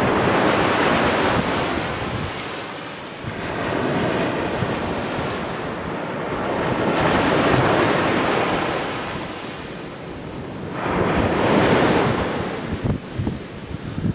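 Sea waves breaking on a sandy beach and washing up the shore, the surf swelling and ebbing in three loud surges a few seconds apart.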